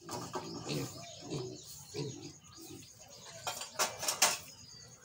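Piglets giving short, irregular low grunts while rooting in the dirt. About three and a half seconds in comes a quick run of sharp clicks or clatters, the loudest sounds here.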